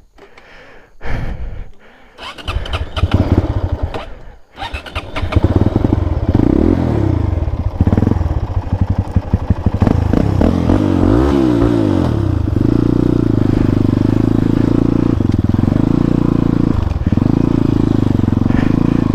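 Motorcycle engine revved hard, its pitch rising and falling a few times, then held steadily at high revs for the last several seconds. The rider has twisted the throttle in mud he hadn't noticed.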